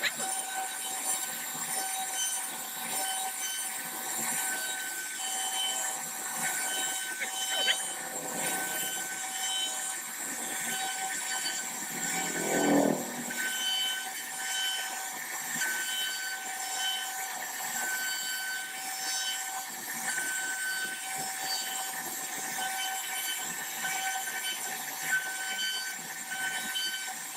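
CNC router spindle running while it carves a design into wood: a steady high-pitched whine whose tones break off and return as the cutter works. About halfway through there is one short, louder, lower sound.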